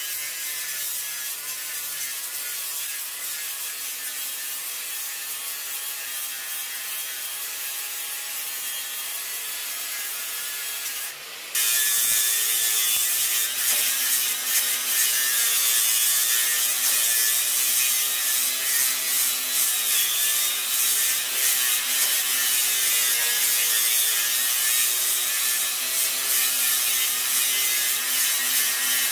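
Angle grinder grinding down fresh welds on a wood stove's body to smooth them: a steady grind of the spinning disc against the metal. It drops out for a moment about eleven seconds in, then starts again louder.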